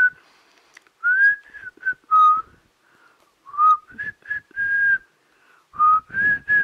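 Whistling a tune of about ten short notes with brief pauses between them, some sliding up or down, and a longer held note near the end. A rough, noisy rustle sounds under some of the later notes.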